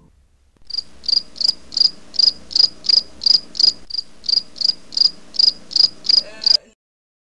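Cricket chirping, a steady run of high chirps about three a second that starts abruptly and cuts off sharply: the stock comedy crickets effect used to mark an awkward silence.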